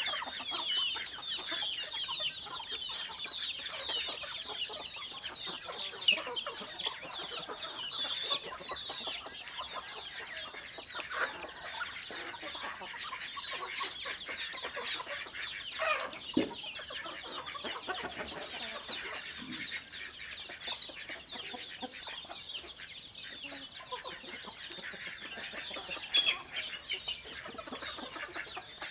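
A flock of chickens clucking and calling continuously, with a few louder sharp sounds scattered through.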